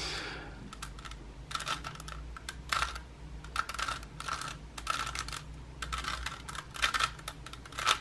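Plastic layers of a 3x3 Rubik's cube clacking as its faces are turned one after another, about a dozen short irregular clicks while a move sequence is carried out.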